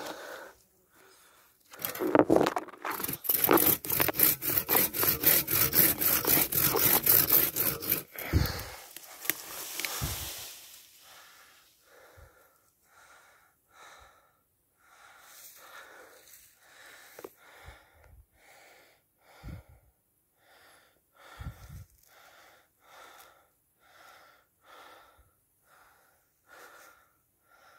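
Hand saw cutting through a birch trunk in quick, even strokes, about three a second, for some six seconds, followed by a couple of heavy thumps. Then steady heavy breathing, about one breath every two-thirds of a second.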